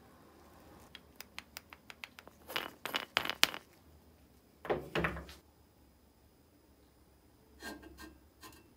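Light metal clicks and knocks as the crank handle is taken off an antique cast-iron rotary grater and handled on a wooden workbench. A quick run of small ticks comes about a second in, then several louder knocks, a heavier clunk about five seconds in, and a few more clicks near the end.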